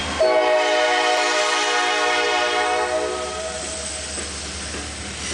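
Freight train's air horn sounding one long chord of several notes, fading out after about three seconds, with a steady rumble underneath.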